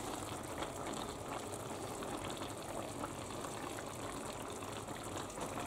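Juices of a beef-and-vegetable stew simmering in an open pot, a steady quiet bubbling. The meat and vegetables are stewing in their own released juices with no water added.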